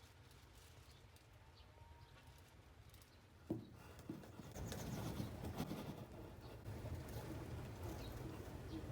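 Strong wind buffeting the microphone as a low rumble, with two sharp knocks a little after three and a half seconds in, then a louder gusty rustle from about halfway.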